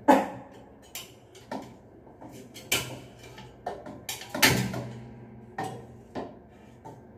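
T8 LED tube knocking and clicking against the metal elevator ceiling light fixture as it is fitted into its sockets: a string of sharp knocks, the loudest at the very start and about four and a half seconds in, each louder one followed by a short metallic ring.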